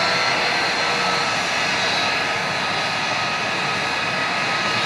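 Jet car's jet engine running steadily: a constant roar with a steady high whine over it.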